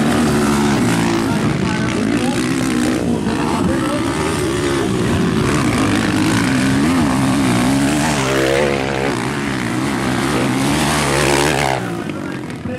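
Motocross dirt bike engines revving hard, their pitch rising and falling over and over with throttle and gear changes. The sound eases off a little near the end.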